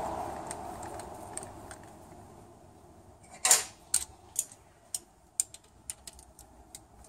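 A rush of noise fades away over the first two seconds. Then come sharp, light clicks, about two a second, from a hand and a small tool working at the transmission valve body's bolt and wiring connector. The first click, about three and a half seconds in, is the loudest.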